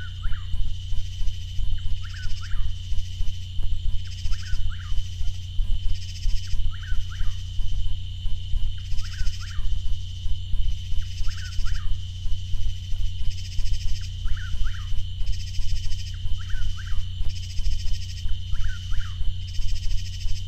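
Chuck-will's-widow singing, its short call repeated about every two seconds, over a steady low hum and a steady high-pitched whine.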